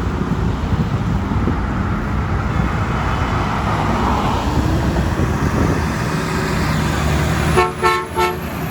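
Truck engine rumble, then a garbage truck's horn gives two short honks in quick succession near the end.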